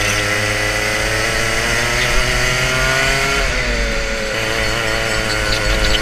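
Onboard sound of a two-stroke racing kart engine under load, its buzzing note climbing steadily as the kart accelerates. About three and a half seconds in the pitch drops briefly as the driver lifts off for a corner, then climbs again.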